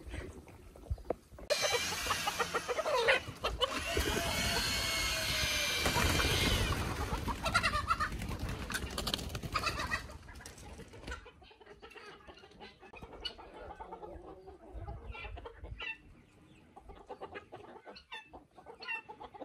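Chickens clucking and squawking, with a loud, busy stretch of calls through about the first ten seconds, then quieter scattered clucking.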